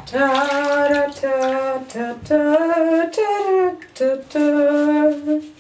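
A woman humming a slow, wordless tune in long held notes with short breaks between them.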